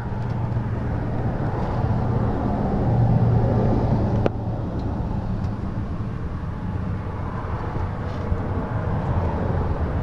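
Subaru WRX's 2.5-litre turbocharged flat-four engine idling steadily, heard from underneath the car. A single sharp click sounds about four seconds in.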